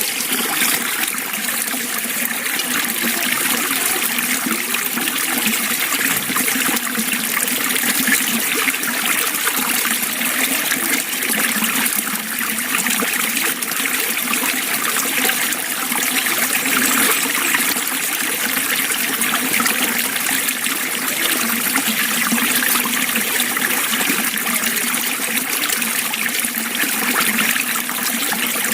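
Water flowing and trickling steadily, with no breaks or distinct splashes.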